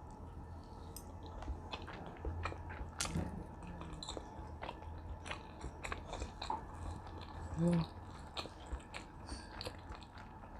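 Close-miked eating: chewing and biting with small crunches and wet clicks at an irregular pace, over a low steady hum. About three-quarters of the way in comes one brief pitched sound, the loudest moment.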